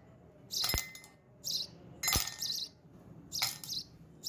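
Ice cubes dropped one by one into a drinking glass, several separate clinks and knocks. Birds chirp in the background.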